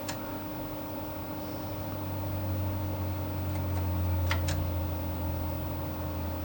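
Steady low electrical hum from the running vintage computer setup, with a few sharp keyboard key clicks: one at the start, then two pairs a little past halfway.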